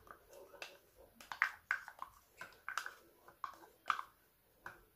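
Spatula scraping and tapping condensed milk out of a plastic measuring cup into a glass bowl: a dozen or so short, irregular scrapes and clicks.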